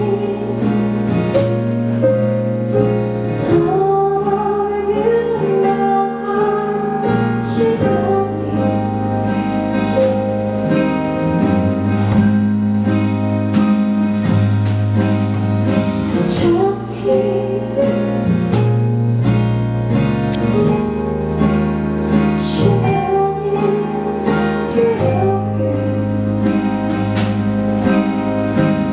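Live pop band performance of a song: a female singer's melody over guitar, bass and keyboard-style accompaniment, with occasional cymbal strokes.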